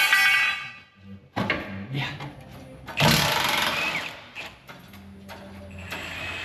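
Workshop tool noises from work on a car's front suspension: short knocks and clatter, then a longer noisy burst about halfway through. A steady low mechanical hum sets in near the end.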